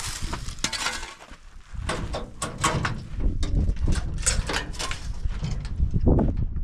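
A metal shovel scraping and tossing loose, dusty gravel, with gritty clatter, then clanks and knocks at a pickup truck's metal tailgate, the loudest about six seconds in. A low rumble runs under it from about two seconds in.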